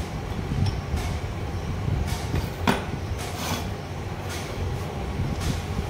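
Light metallic clicks and knocks of steel gearbox parts being fitted into a motorcycle crankcase, a handful of separate taps with the loudest about two and a half seconds in, over a steady low hum.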